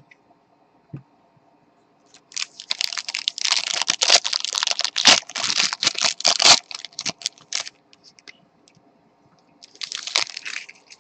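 Crinkling and rustling of plastic or foil trading-card packaging being handled, in a dense crackly stretch of about five seconds and a shorter burst near the end.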